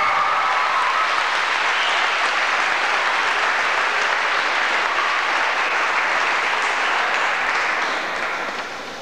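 An audience applauding steadily, dying down near the end.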